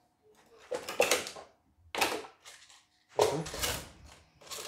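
Hard objects such as tools knocking and clattering as they are handled and moved about: four separate clatters, roughly a second apart.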